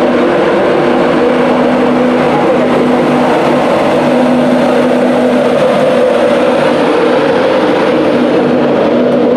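Convoy of LNER Class 91 electric locomotives passing slowly at close range: a steady, loud mechanical running noise with a humming tone that comes and goes.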